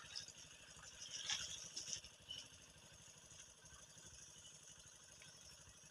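Near silence: a faint low rumble, with a few soft clicks and rustles in the first two seconds.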